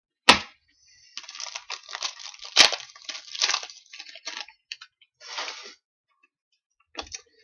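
Trading card pack being opened by hand: the wrapper crinkling and tearing in several bursts, with a few sharp clicks and slaps of cards being handled.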